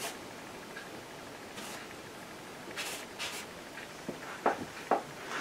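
Stiff bristle brush rubbing oil paint: a few short scratchy strokes, then two light knocks about four and a half seconds in.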